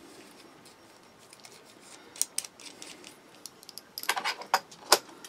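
Light metal clicks and clinks of small hand tools being handled: a driver bit pushed back into its holder and a folding knife set down on a silicone work mat. A few single clicks, then a quick run of clicks about four seconds in and one sharp click near the end.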